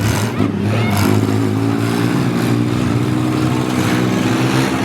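Engines of several derby minivans, SUVs and small trucks running and revving at once, their pitch rising and falling slowly.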